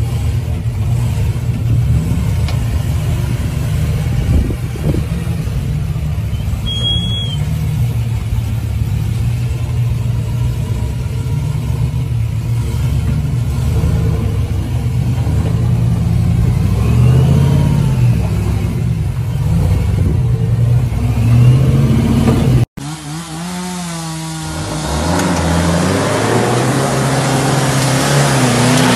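Off-road truck engine revving up and down as a lifted Jeep Gladiator crawls over boulders; after a sudden cut near the end, another pickup's engine revs with a rising pitch and a growing hiss as it drives through mud.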